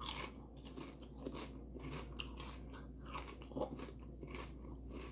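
Close-up chewing of a hot dog, with irregular wet mouth clicks and a few crunchy bites.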